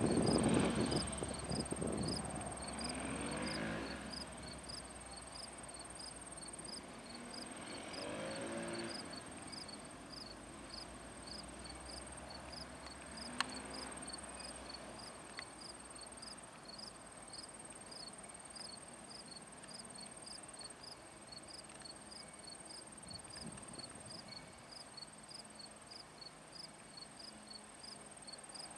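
EMD diesel locomotive running as it moves off and fades over the first several seconds. After that, insects chirp in a regular rhythm of about two chirps a second over a steady high trill. A single sharp click is heard about halfway through.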